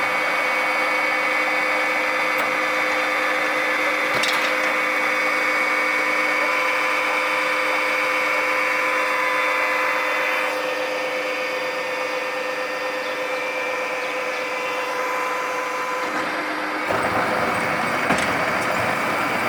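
Silage round baler running: steady machine noise with a steady whine. The sound shifts about halfway through, and a heavier low engine rumble joins near the end.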